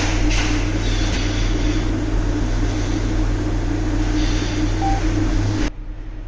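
Steady mechanical hum with a low drone and a constant mid tone over a noisy wash, cutting off abruptly near the end.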